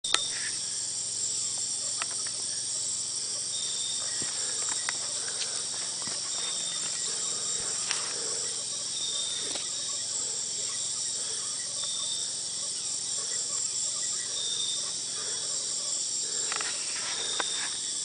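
Rainforest insects such as crickets calling in a steady, high-pitched chorus, with short chirps recurring every couple of seconds. A few faint clicks sit over it, the sharpest at the very start.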